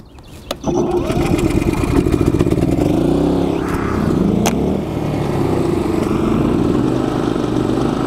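Two Energizer eZV-series inverter generators starting up: the larger eZV3200P catches about a second in and settles into a steady run, then the smaller eZV2000P is pull-started around four seconds in and comes up in pitch alongside it.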